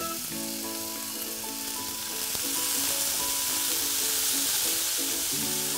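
Cooked chana dal frying in oil in a nonstick pan, sizzling as a wooden spatula stirs it; the sizzle gets louder about two seconds in.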